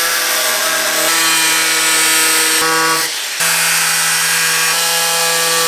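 Electric angle grinder running at speed, its sanding disc grinding the edge of a thin carbon-fibre hood: a steady motor whine over a gritty rasp. It cuts out briefly about three seconds in, then picks straight up again.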